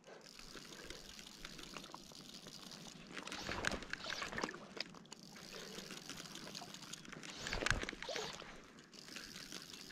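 Water splashing and trickling right beside a float tube while a hooked trout is played on a fly line. It swells louder twice, around the middle and again later.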